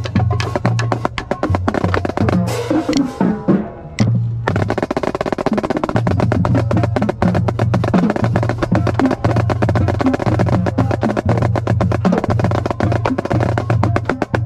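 Marching snare drum played in fast, dense strokes and rolls, thinning out about two seconds in and breaking off briefly near four seconds before the playing resumes. A deep bass runs underneath in a steady pulse.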